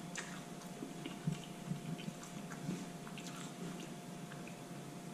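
A person chewing a mouthful of food close to the microphone: soft, irregular wet mouth clicks and smacks.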